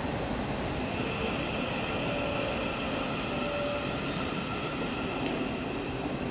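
Electric passenger train running along the platform: a steady rumble of wheels on rail, with faint high whining tones over it from about two seconds in.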